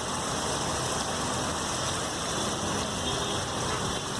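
Oil and tomato-chilli masala sizzling steadily on a large flat street-food griddle, a continuous even frying hiss.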